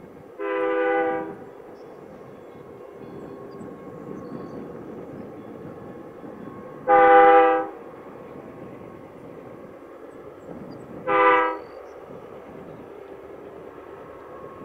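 Distant CN freight locomotive's air horn sounding three blasts over the low rumble of the approaching train: two longer blasts about six seconds apart, then a short one, with another long blast starting at the very end. This is the long-long-short-long pattern of a grade-crossing signal.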